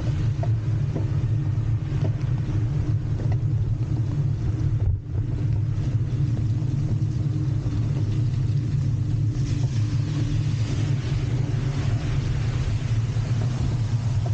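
Steady low rumble of riding a bike along a road with traffic in the rain, with a brief dip about five seconds in and a hiss growing louder about ten seconds in.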